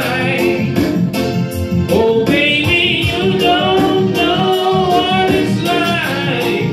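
A man singing into a handheld microphone over backing music with a steady beat.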